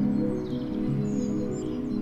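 Soft background music of sustained low chords, with bird chirps over it from about half a second in.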